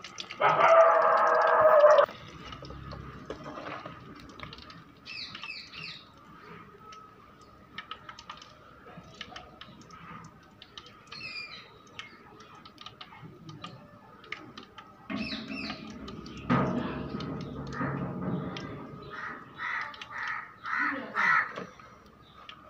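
Nethili (anchovy) fry deep-frying in oil in an aluminium kadai, crackling throughout. A loud, steady, even-pitched tone sounds for about a second and a half near the start. Short caw-like bird calls come in a quick series near the end.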